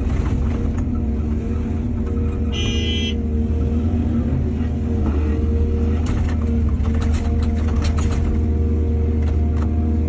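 Excavator's diesel engine running steadily under load. A short high-pitched tone sounds about three seconds in, and a run of sharp knocks and clatter comes between about six and eight seconds in.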